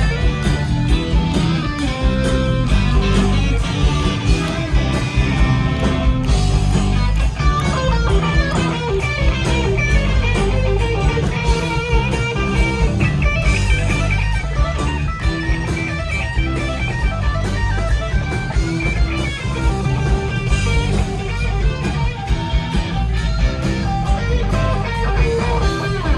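Live rock band playing loudly, electric guitar to the fore over a steady drum beat, heard from the audience area of a concert hall.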